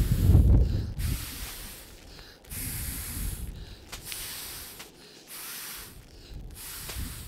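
A person inflating an inflatable sleeping pad by mouth: a series of breathy rushes of air, one after another about a second each, as he blows into the pad's valve, loudest near the start.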